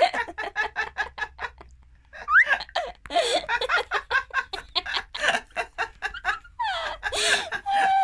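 A person laughing hard in rapid, breathless bursts of short pulses, with a brief pause and then a short rising squeal about two and a half seconds in.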